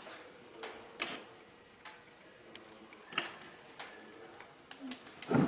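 Scattered light clicks and taps at irregular intervals, about one or two a second, over a faint steady hum.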